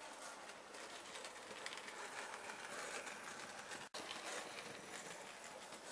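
Hornby GWR Dean Single model locomotive running along the layout's track, a steady running noise of motor and wheels on rail that swells in the middle and breaks off for an instant about four seconds in.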